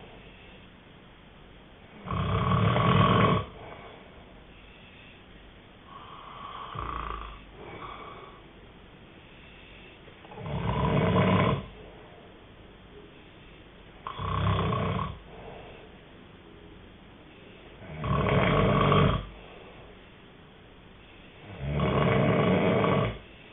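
A sleeping person snoring loudly and regularly, about one snore every three to four seconds, each lasting about a second, with quieter breaths in between; one snore about a third of the way in is softer.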